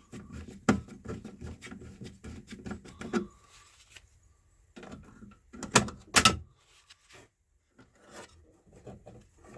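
Hand tools working the wire terminals of a safety switch: a run of small clicks and scrapes, then two sharp clacks about six seconds in.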